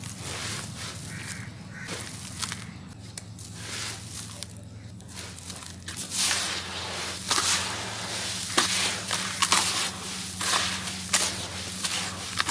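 Hands squeezing and crumbling damp, gritty sand-cement and ash in a plastic basin, making soft crunching and gritty rustling. The crunching gets busier and crisper from about six seconds in.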